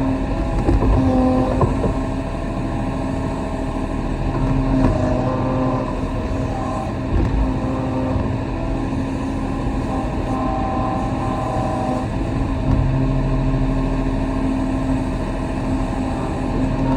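Kobelco SK35 compact excavator's diesel engine running steadily under working load, with a hydraulic whine that shifts in pitch as the boom and bucket move.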